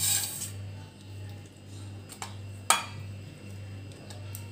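Pieces of marinated hilsa being set by hand into a steel tiffin box: soft handling noise with a few metallic clicks, one sharp clink a little past halfway. Under it runs a low hum that pulses about twice a second.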